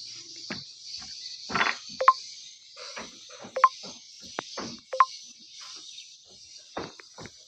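Steady high-pitched insect chirring, broken by a series of short, sharp knocks and clicks, three of them loud with a brief ringing note. No engine is running.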